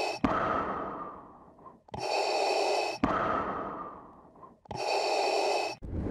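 Three slow, rasping breaths about three seconds apart, each a hissing breath with a whistling edge that stops sharply, followed by a rush of air that fades away.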